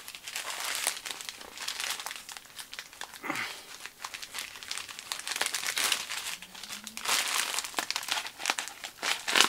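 Plastic poly mailer bag crinkling and rustling in irregular bursts with sharp crackles as it is handled and cut open with a blade.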